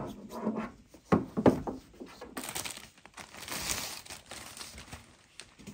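Air purifier filters being handled: a sharp knock as a filter is pulled from the housing, two lighter clicks, then the filter's plastic wrapping crinkling and rustling for a couple of seconds.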